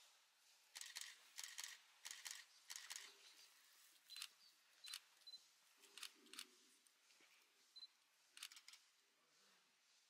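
Faint camera shutter clicks, some in quick runs of several, with a few short high autofocus beeps now and then.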